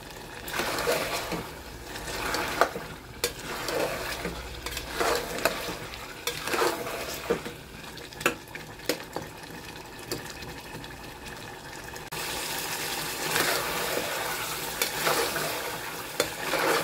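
Slotted metal spoon stirring and scraping mutton around an aluminium pressure cooker, with the oil and masala sizzling as the meat is fried down dry (bhuna). The strokes are irregular, with sharp clicks of the spoon against the pot. About twelve seconds in the sizzle grows louder and steadier.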